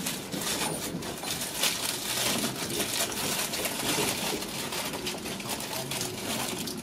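Rhein-Ruhr Express electric train running, heard from inside the carriage: a steady running noise with frequent irregular clicks and rattles.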